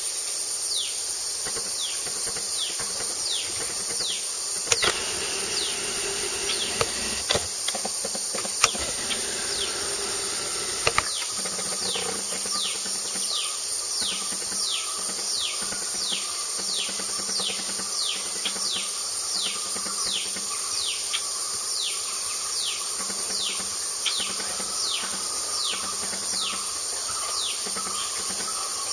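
Dusk forest insect chorus: a steady high-pitched drone, with a short falling chirp repeated a little over once a second throughout. A few sharp clicks and some rustling come between about five and eleven seconds in.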